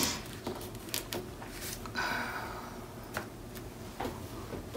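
Paper rustling and sliding as a strip of patterned scrapbook paper is wiggled into a tight slot between layered cardstock, with light taps and clicks of fingers on the paper and one longer sliding rasp about two seconds in.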